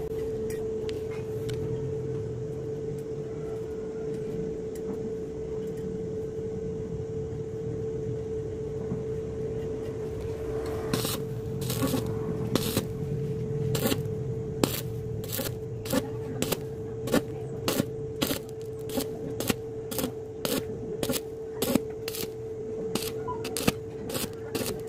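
Stick (SMAW) welding arc on thin-walled galvanized pipe under a steady hum. From about eleven seconds in, the arc is struck and broken in short dabs, sharp crackles roughly twice a second, building up weld over burnt-through holes without blowing through the thin wall.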